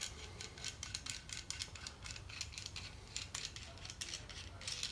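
Electrical tape being pulled off the roll and wrapped tightly around the end of a stainless-braided 10AN hose, a run of faint crackling ticks.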